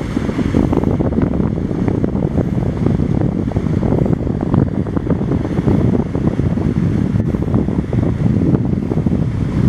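Strong wind buffeting the microphone, a loud, uneven low rumble, mixed with the engines and wake wash of a fast crew boat passing at speed.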